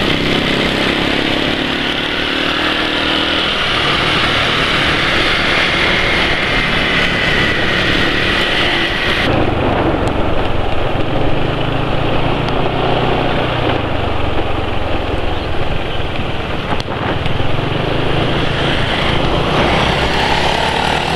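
Automatic scooter's engine running while riding at about 20 to 30 km/h, with wind and road noise. In the first part a high whine rises slowly in pitch. The sound changes abruptly about nine seconds in.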